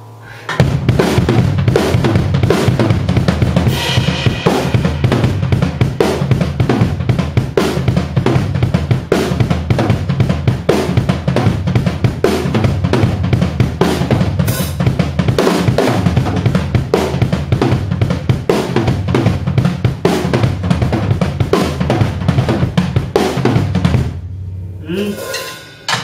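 Acoustic drum kit played with sticks: a busy, fast groove of kick drum, snare and cymbals that starts about half a second in and stops near the end.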